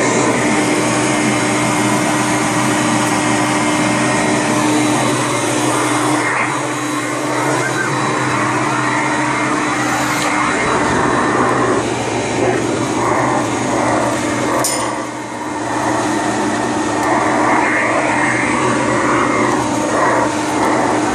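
Hoover Conquest upright vacuum running steadily, its direct-air fan motor sucking through a hose attachment. The sound wavers in the second half and dips briefly about fifteen seconds in.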